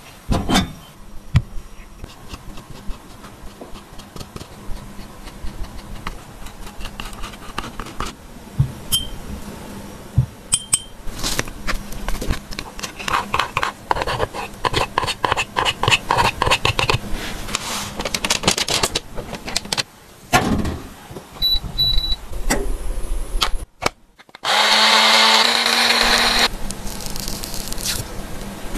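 A metal spatula scraping and crumbling a pressed makeup powder cake in a compact: rapid scratchy strokes with small clicks and taps. A steady rushing noise comes in near the end.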